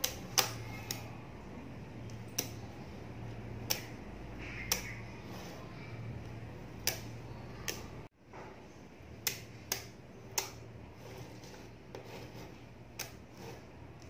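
Blocks of small magnetic balls clicking sharply as they snap together and are set down on a table: about a dozen irregularly spaced clicks over a faint steady low hum.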